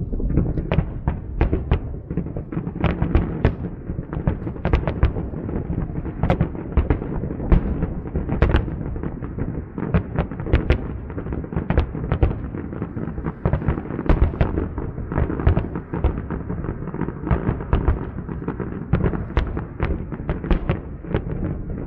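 Aerial firework shells bursting in quick succession: several sharp reports a second over a continuous low rumble of booms.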